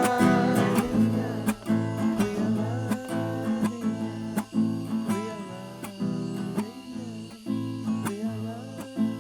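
Strummed acoustic guitar music with steady chords, growing gradually quieter.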